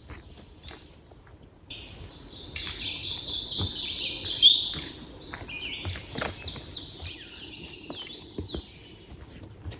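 A songbird singing one long, rapid run of high notes that starts about two seconds in, swells, and fades out shortly before the end.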